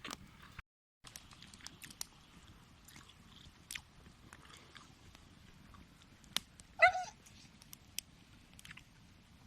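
A dog gives one short, loud whine about seven seconds in, over faint scattered clicks.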